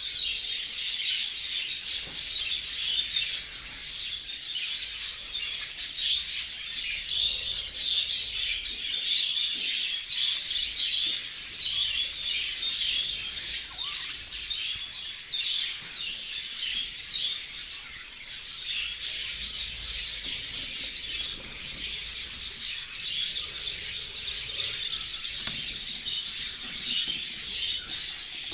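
A flock of budgerigars chattering, many birds chirping at once without a break.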